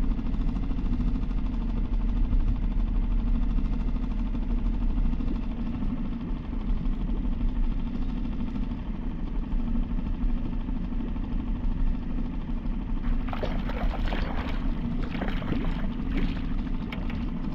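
Small boat motor on the canoe's stern running steadily at trolling speed, a continuous low hum. From about 13 seconds in, a hooked brook trout thrashes and splashes at the surface beside the canoe in several irregular bursts.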